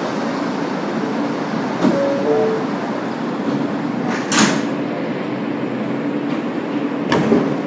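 R143 subway car standing at a station with its steady running hum. About two seconds in a two-note falling door chime sounds, then the sliding doors thud shut with a loud knock a couple of seconds later, and another clunk comes near the end.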